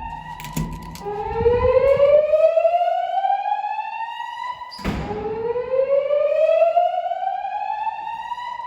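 Gentex speaker strobes on a Notifier NFS2-640 voice-evacuation system sounding the slow whoop evacuation tone: a rising sweep from low to high that starts over about every four seconds. A sharp knock cuts through it about five seconds in.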